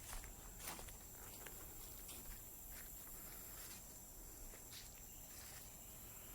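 Faint outdoor ambience: a steady high-pitched insect drone, with soft, irregular footsteps on the trail.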